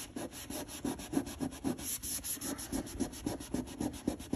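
Paper towel scrubbed hard back and forth over waterproof vinyl plank flooring, in quick rubbing strokes several times a second, working a rust stain off the floor.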